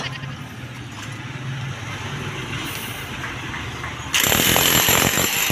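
A low, steady hum, then about four seconds in a handheld electric demolition hammer starts up suddenly and runs loudly with a rapid rattling hammer action.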